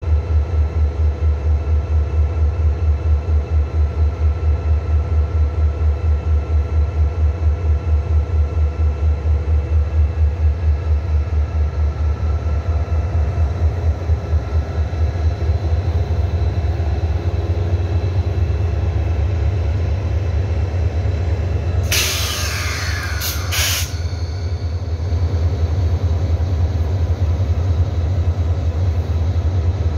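Diesel locomotive engine running with a steady low throb of about four pulses a second. About 22 seconds in comes a loud hiss of released air lasting about two seconds, typical of an air-brake release.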